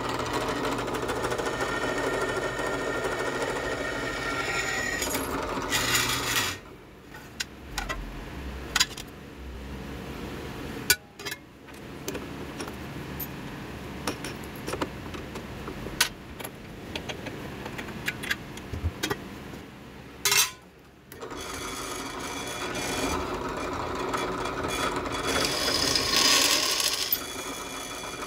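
Bench drill press running with a twist bit boring into thin steel plate; the motor stops about six seconds in. Scattered metallic clicks and knocks follow while the bit is swapped, then the drill press starts again about twenty-one seconds in and a larger bit drills the final hole over the smaller pilot hole.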